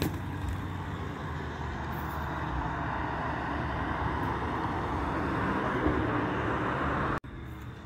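Steady outdoor rushing noise that grows slowly louder, then cuts off suddenly near the end.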